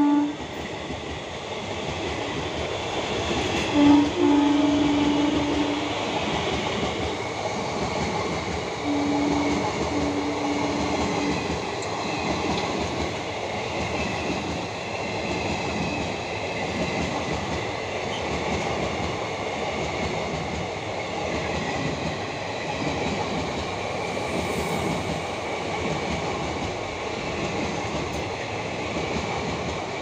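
Electric goods train of covered wagons rolling past on the track with a steady rumble and wheel noise. The locomotive's horn gives a honk of about two seconds around four seconds in, then two short honks a few seconds later.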